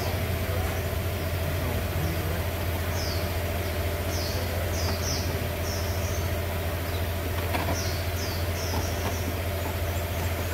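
Steady low engine hum, like a car engine idling, with small birds chirping now and then and a single sharp plastic click about halfway through as the air-filter housing lid is handled.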